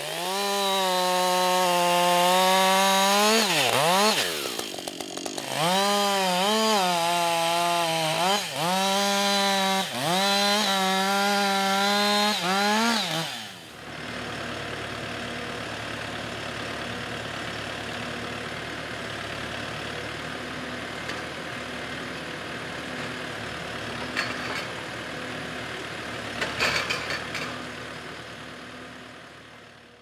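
Husqvarna two-stroke chainsaw at full throttle cutting through a log, its high whine sagging and picking back up several times as the chain bites. About halfway through it gives way to the quieter, steady diesel hum of a forestry tractor working its log-loading crane, with a few knocks near the end.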